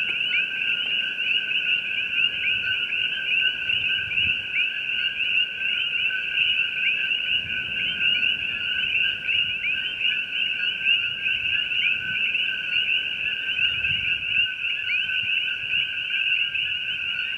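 Dense, steady chorus of many coqui frogs, countless overlapping two-note 'ko-kee' calls.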